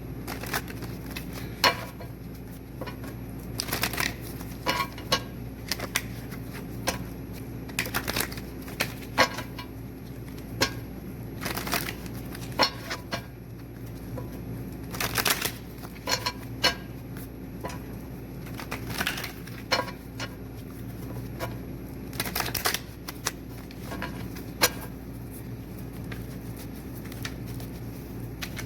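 Tarot cards being shuffled by hand: irregular snaps and clicks of card stock, some in quick clusters, over a steady low hum.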